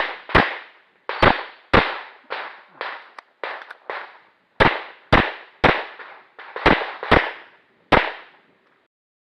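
Pistol fire: about ten loud shots, mostly in quick pairs about half a second apart, with fainter shots between them. The firing stops shortly before the end.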